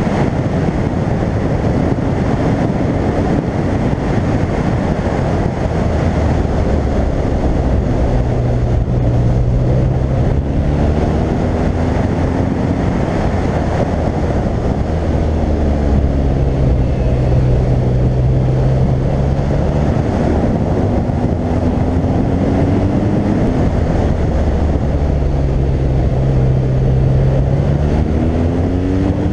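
Wind rushing over a helmet-mounted camera while riding a BMW R1200GS, with the bike's boxer twin engine rising and falling in pitch several times as it accelerates and eases off through the bends.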